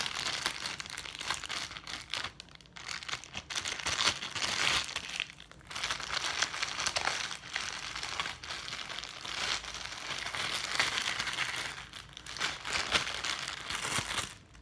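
Plastic bag crinkling and rustling as it is handled and opened, in irregular stretches with short pauses.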